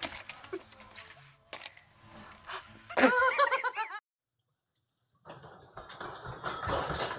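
Small clicks and crinkles of plastic being handled, then a man's loud cry with a wavering pitch about three seconds in. After about a second of silence, a muffled, noisy stretch of indistinct sound.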